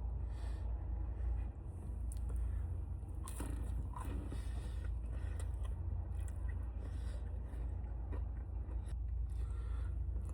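A person biting into and chewing a fried chicken nugget dipped in hot honey sauce, with scattered soft crunches, over a steady low rumble.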